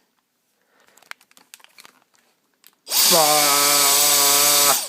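A few faint clicks, then a Dyson cordless handheld vacuum cleaner switched on about three seconds in, its motor running at a steady high-pitched whine with a strong rush of air for nearly two seconds before it is switched off.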